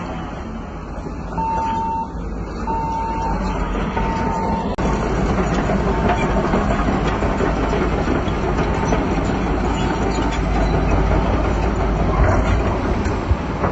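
Crawler bulldozer running, its diesel engine rumbling with clattering tracks, growing louder about four and a half seconds in. Over it a reversing alarm beeps about once every second and a half, fading out about ten seconds in.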